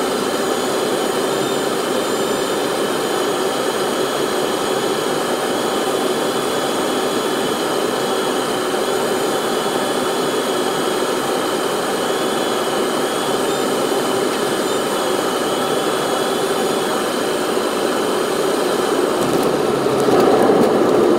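Steady jet engine and airflow noise heard inside the cabin of a Boeing 777-300 on final approach, with a faint wavering high whine. About a second before the end the aircraft touches down: the noise turns rougher and louder as the spoilers come up.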